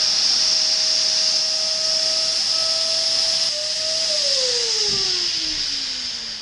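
Vacuum cleaner running with a loud hiss and a steady motor whine, then switched off: about four seconds in, the whine falls steadily in pitch and fades as the motor spins down.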